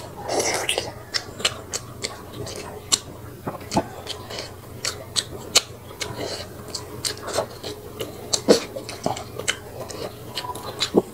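Close-miked eating sounds of someone chewing soft snakehead fish, with many short, irregular mouth clicks and smacks throughout.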